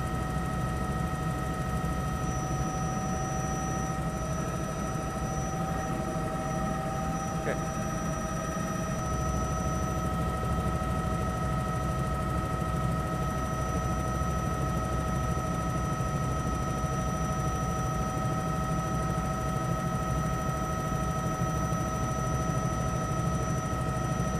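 Helicopter in flight, heard from inside the cabin: a steady low rotor rumble under a constant turbine whine.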